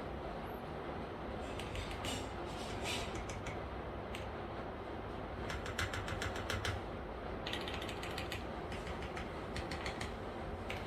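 Typing on a Smith + Rune Iron180 mechanical keyboard with a brass bottom, lubed and filmed vintage Cherry MX Black linear switches and GMK keycaps: keystrokes come in quick bursts with short pauses between, the fastest run about halfway through. A steady low background noise is heard under the keystrokes.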